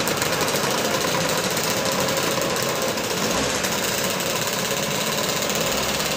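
Engines of a procession of Vespa and Lambretta scooters running as they ride slowly past, a dense, steady, rattly mix of many engines at once.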